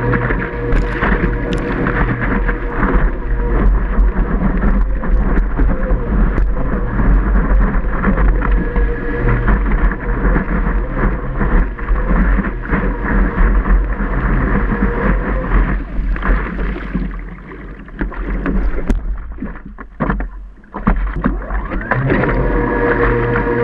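Water rushing and splashing past a surfboard-mounted camera, with wind buffeting the microphone and the steady whine of a Wavejet electric jet drive. The whine stops about sixteen seconds in and returns near the end.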